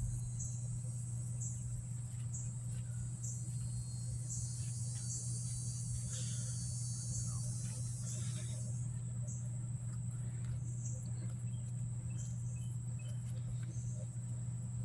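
Lennox package heat pump running in cool mode: a steady low hum from the compressor and condenser fan. Crickets chirp high and evenly over it, with a denser insect buzz that thins out about nine seconds in.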